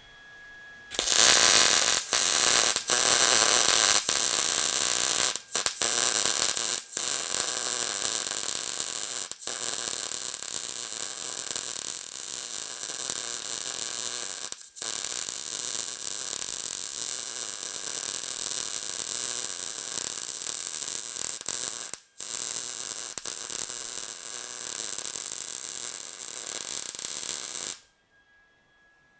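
Lincoln 140 MIG welder's arc crackling steadily while welding steel, in several long runs with a few brief breaks where the trigger is let off. It starts about a second in and stops shortly before the end.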